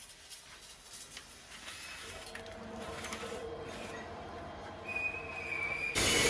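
Brake-drum turning lathe running with a truck drum on its table: a steady machine hum builds from about two seconds in, with a thin high squeal of metal near the end. A much louder, noisier machine sound cuts in suddenly right at the end.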